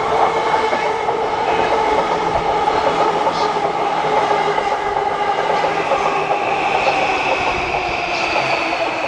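E235-series Yamanote Line electric train passing close by, its wheels running and clattering over the rails under a steady whine from its traction motors. A high whine grows stronger in the last couple of seconds.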